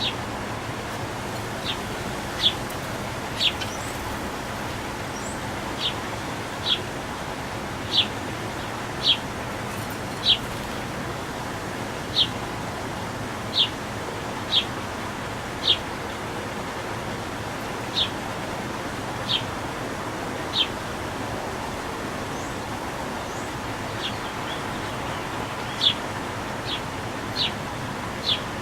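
A small bird repeating a single short, sharp chirp about once a second, over a steady background hiss.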